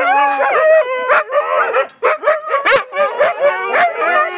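Several Siberian huskies howling and "talking" at once: overlapping, wavering calls that rise and fall in pitch, mixed with short yips and barks.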